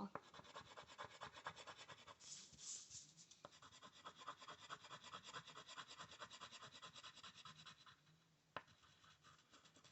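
Faint, rapid back-and-forth colouring strokes of a crayon or coloured pencil scratching on paper, stopping about eight seconds in, followed by a single light click.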